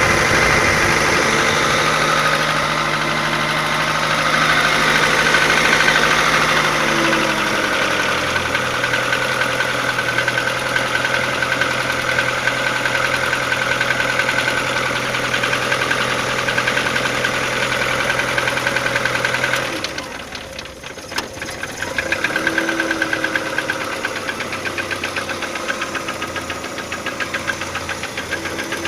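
Audi 80 B3 1.8-litre four-cylinder petrol engine idling with a steady, rhythmic knock whose cause the owner can't identify. The engine speed settles lower about seven seconds in, and the sound briefly drops away around twenty seconds in.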